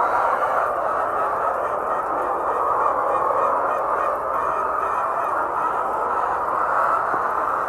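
A large flock of laying hens clucking and cackling together in a dense, steady chorus.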